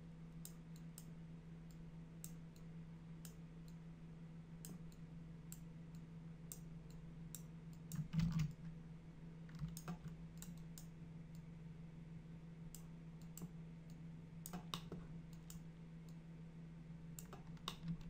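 Sparse, irregular computer mouse and keyboard clicks over a steady low electrical hum, with one louder short knock about eight seconds in.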